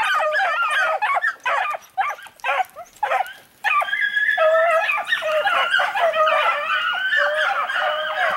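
A pack of hounds baying in full cry as they run a hare's track, several voices overlapping. There is a short lull about three and a half seconds in, then the pack comes in fuller.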